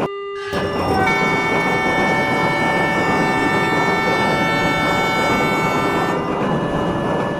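Train horn held in one long steady blast of about five seconds, starting about a second in and fading near the end, over the running noise of a train.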